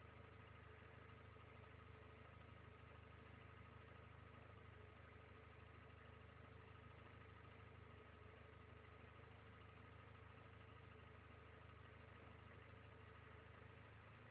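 Car engine idling steadily and faintly, run by an MS2 Plug'N Play ECU on low-impedance injectors, with a steady low hum and a couple of faint constant whines over it.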